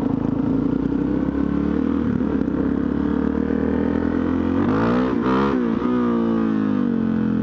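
Suzuki DR-Z400's single-cylinder four-stroke engine running under way at steady revs, then revving up and dropping back about five seconds in before settling a little lower.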